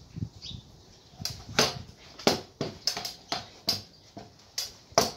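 Envy Prodigy S8 pro scooter clacking against patio tiles as it is ridden and hopped, about nine sharp clacks at uneven intervals starting about a second in.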